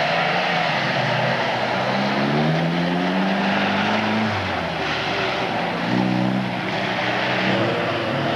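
Folkrace car engine run hard, its pitch climbing steadily for about three seconds, dropping sharply just after 4 s, then climbing again about 6 s in, over the hiss of tyres on dirt.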